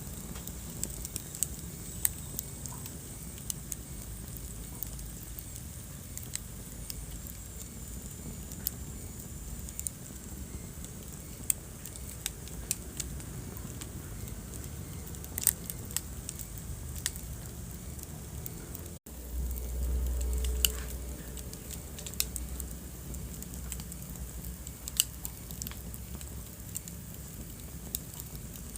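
Wood fire crackling in a fireplace: sharp, irregular pops and snaps over a steady low rumble of the flames, with a faint high hiss at times. The sound cuts out for an instant about two-thirds of the way in, then comes back with a louder low rumble for a couple of seconds.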